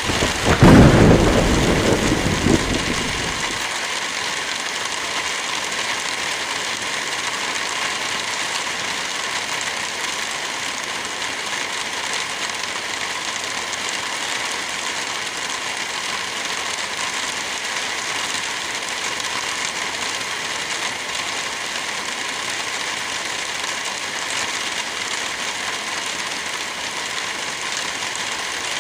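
Steady rain falling, with a deep rumble that starts about half a second in and dies away over the next three seconds.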